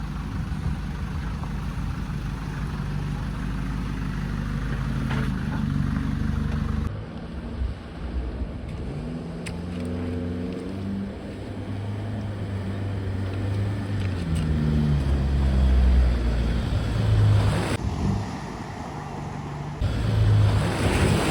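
A 4x4's engine running as it crawls over a rough track, its pitch rising and falling with the throttle. A loud rushing noise comes in near the end.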